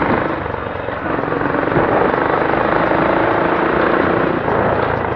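Suzuki Gixxer SF's single-cylinder engine running steadily at low speed, heard from on board the motorcycle along with a steady rush of wind and road noise.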